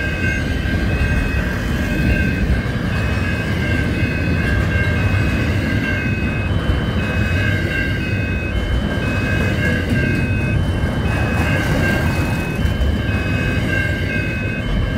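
Double-stacked container freight train rolling past, its wheels and wagons making a steady, loud rumble. Over it, the level crossing's electronic warning bell repeats a quick, even two-note ding.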